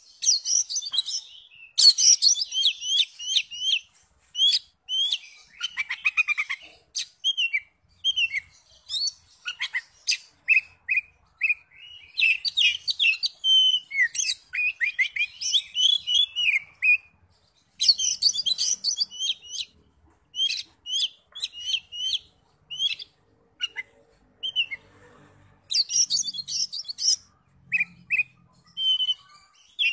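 Oriental magpie-robin singing: a long run of fast, varied whistled phrases, sharp chirps and trills, broken by short pauses.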